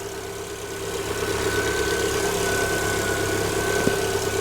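Lada Vesta's 1.6-litre engine idling evenly after a cold start at about −30 °C, its hydraulic lifters pumped up and no longer ticking. A thin steady high whine rides over the idle.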